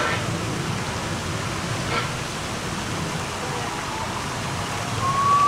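Busy outdoor public-area ambience: a steady wash of noise with scattered distant voices. A short call comes about two seconds in, and a brief, slightly rising high tone near the end is the loudest moment.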